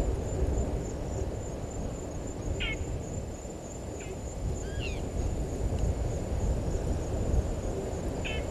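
A wild bird giving a few short, sharp calls that sweep in pitch, spread across several seconds, over a steady low rumble and a faint, high, even pulsing.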